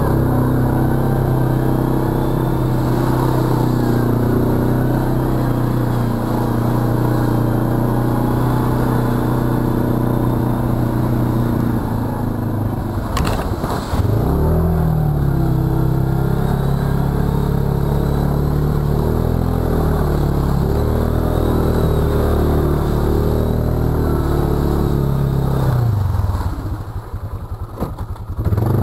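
Arctic Cat ATV engine running steadily under throttle through a muddy trail. About halfway through there is a sudden crash of mud and water, and the engine note dips and then comes back up. Near the end the engine slows and quietens briefly before picking up again.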